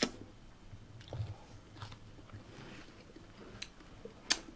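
Close-miked chewing and mouth sounds of someone eating, with a few sharp wet clicks spread through it.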